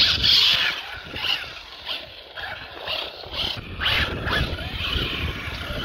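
Hobao Hyper RC buggy driving over grass and dirt, its motor rising and falling with short bursts of throttle.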